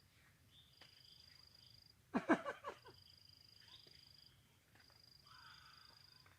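Insects calling in steady high-pitched trills that stop and start every second or so, with a short, loud animal call about two seconds in.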